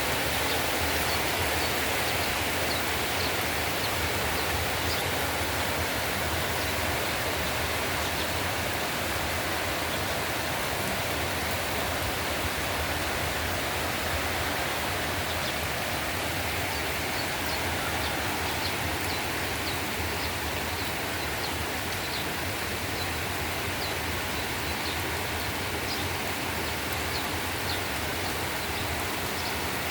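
Heavy tropical-storm rain falling steadily, a dense, even hiss that does not let up.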